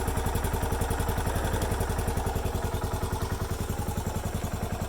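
Yamaha SR400's single-cylinder four-stroke engine idling steadily, with an even, rapid pulse.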